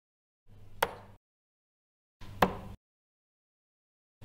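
Two darts hitting a dartboard, each a single sharp thud, about a second and a half apart, each in a short patch of faint room noise with dead silence between.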